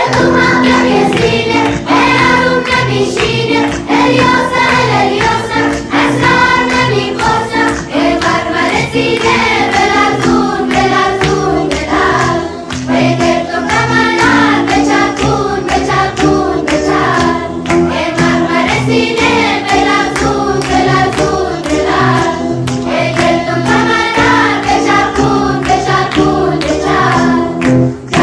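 Music: a chorus of voices singing a Persian folk song together over a steady, driving drum beat.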